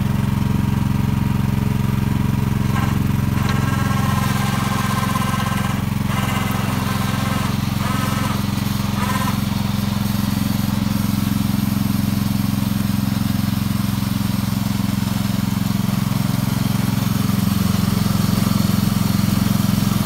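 Wheel Horse garden tractor engine running steadily under load while it pulls a single-furrow plough through garden soil.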